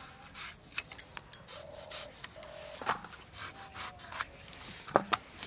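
A tomato being sliced on a bonti, a fixed upright curved blade, with quiet scattered cutting and scraping sounds and small clicks; the sharpest clicks come about halfway through and near the end.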